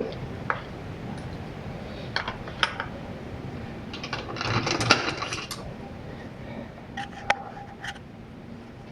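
Small metal tools and hardware being handled: scattered light clicks and clinks, a busier clatter around the middle, and one clink with a short metallic ring a little after seven seconds.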